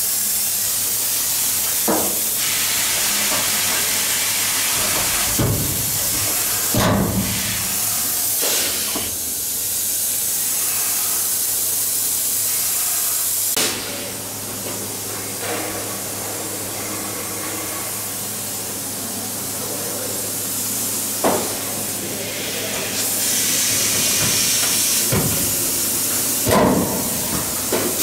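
Steady hiss of compressed air from a pneumatic tool and its air hose, swelling and easing, over a low hum, with a few sharp metallic knocks.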